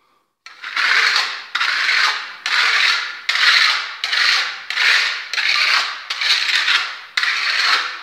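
Steel trowel burnishing freshly applied Venetian plaster on a wall: about nine scraping strokes in a steady rhythm, roughly one a second, polishing the plaster to a gloss.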